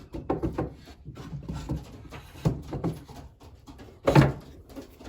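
Racing pigeons stirring in their loft nest boxes: scattered short rustles and taps, with one louder, sharp sound about four seconds in.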